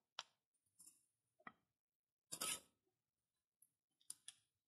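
Faint, sparse handling sounds: a few light clicks and knocks and a short rustle about halfway through, from a ratchet strap and its metal hook being worked around a floor jack.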